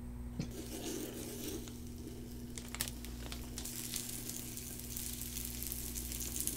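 Oil sizzling faintly in a hot non-stick frying pan as a block of kirimochi (Japanese rice cake) grills in it, with a few light clicks over a faint steady hum.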